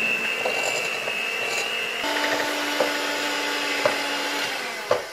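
Electric hand mixer running steadily, its beaters creaming butter on its own in a ceramic bowl. About two seconds in, the motor's whine changes pitch, a few knocks against the bowl follow, and the mixer stops near the end.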